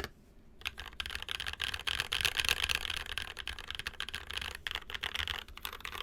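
NK65 mechanical keyboard with lubed Zykos frankenswitches (Glorious Panda top and stem, Zealio v2 bottom, 67 g springs) and Infinikey Musubi keycaps, typed on fast: a dense flurry of keystroke clicks that starts after a short pause about half a second in.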